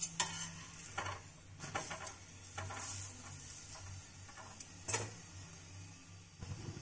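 Steel spatula scraping and knocking against an iron tawa as an aloo paratha is turned over and pressed flat, with a frying sizzle and a steady low hum underneath. The loudest knock comes about five seconds in.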